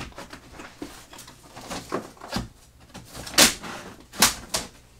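Kit wood strips and sheets being lifted out and set down on a workbench: irregular rustling with several wooden knocks, the two loudest clacks in the second half.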